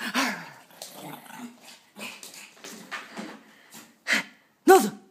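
Pekingese dog growling in a string of short, rough bursts, then giving two short loud barks about half a second apart near the end.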